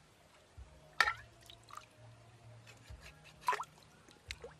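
Stream water splashing and plopping as a plucked duck carcass is dunked and swished by hand, with two louder splashes about a second in and about three and a half seconds in, and a few lighter plops between.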